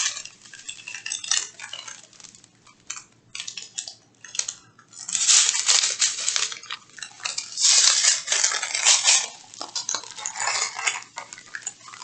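Small plastic bags of round resin diamond-painting drills being handled: the beads rattle and clink and the bags crinkle in irregular bursts, loudest about halfway through.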